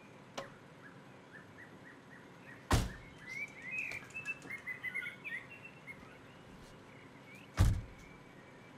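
Two heavy thumps of a car door being shut, one about three seconds in and another near the end, about five seconds apart. Birds chirp faintly between them.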